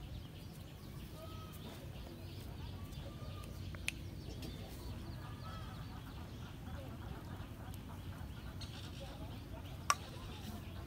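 Open-air ambience: a steady low rumble with faint, distant bird calls, and two sharp clicks, one about four seconds in and a louder one near the end.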